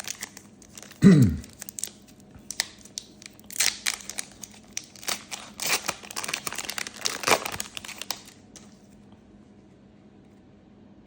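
Foil trading-card pack wrapper being torn open and crinkled by hand, a long run of crackling bursts that stops a few seconds before the end. About a second in there is a brief loud thud with a falling pitch.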